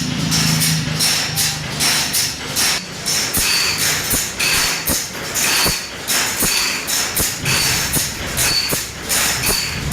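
A metal file rasping across the teeth of a large crosscut saw in steady, regular strokes, a little under one and a half per second. Many strokes carry a brief high metallic ring.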